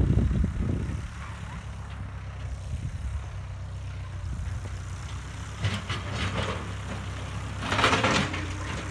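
1950 Ford tractor's four-cylinder engine running steadily at low speed, with a few short louder noises over it, the loudest near the end.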